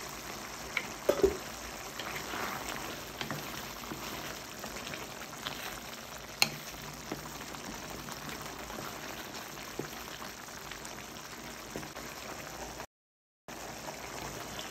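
Tomato-based beef stew bubbling at a boil in a stainless steel pot, a steady bubbling hiss with a few light taps. The sound cuts out briefly near the end.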